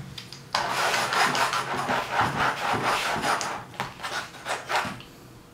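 Toy train's wheels scrubbing back and forth across a paint-covered canvas in quick, scratchy rubbing strokes. It starts about half a second in and stops near the end.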